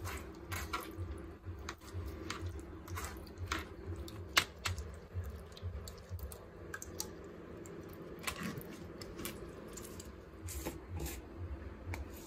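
Steel spoon scraping and tapping against a mesh strainer as soaked bael (wood apple) pulp is pressed through it into a steel bowl: a run of irregular clicks and scrapes, with one sharper click about four seconds in.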